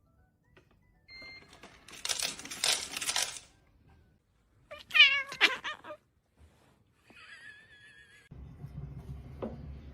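A cat meowing: one loud, wavering meow about five seconds in, after a couple of seconds of noisy scuffling sound. A thinner, higher wavering call comes near eight seconds, followed by a steady low hum.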